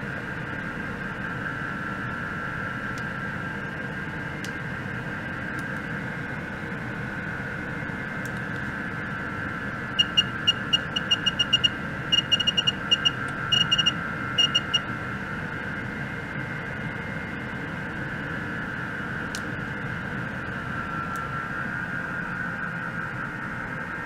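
Steady electronic hiss with a wavering high whine, from an ultrasonic probe oscillation and measurement setup. About ten seconds in, a rapid run of short, high electronic beeps comes in several quick groups and stops some five seconds later.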